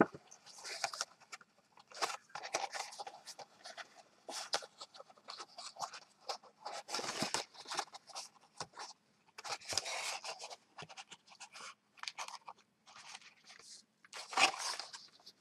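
Pink cardstock being handled and folded: the stiff paper rustles, scrapes and crinkles in short, irregular strokes as the last flap of a folded cardstock box is worked inside.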